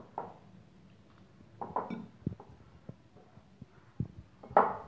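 A hand mixing and squeezing crumbly rice-flour and curd dough in a glass bowl: soft, irregular squishing with light knocks and clicks against the glass.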